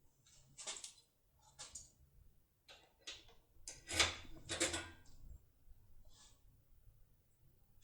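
Foil impression tool being pushed and worked into a Masterlock cylinder's keyway, a tight fit: a string of short scraping and rubbing strokes at irregular intervals, the loudest about four seconds in.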